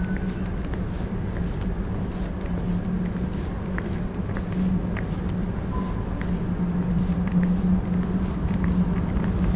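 Steady low hum of an underground train station concourse, with footsteps tapping on the hard tiled floor about twice a second.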